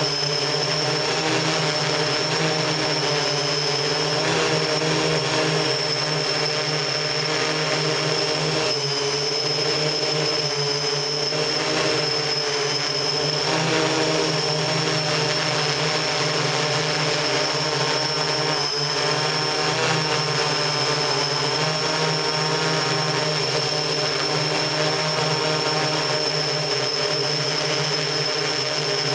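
Octocopter's eight electric motors and propellers humming steadily at close range, with a high whine over the hum and the pitch shifting slightly now and then.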